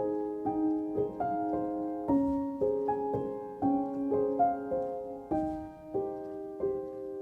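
Background piano music: a solo piano playing a slow melody, a new note or chord about every half second, each left to ring and fade.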